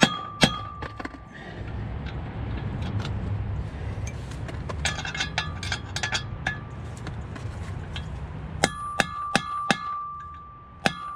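Steel hammer striking a bolt extractor socket to drive it onto a rounded-off 12-point drive shaft bolt, about two blows a second, each with a ringing metallic tone. The blows stop about a second in. A steady low rumbling noise with scattered small clicks follows, and ringing blows resume near the end.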